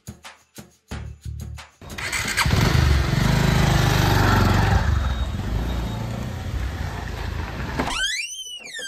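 Motorbike engine starting about two seconds in after a series of short clicks, then running loudly as the bike pulls away. Near the end comes a short squeak that rises and falls, like a door creaking open.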